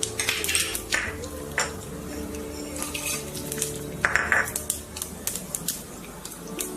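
Metal spoon clinking and scraping against a cooking pot, several sharp knocks and a short scrape about four seconds in, over background music.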